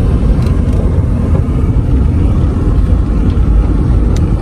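Car moving along a dirt road, heard from inside the cabin: the engine and tyres make a loud, steady rumble.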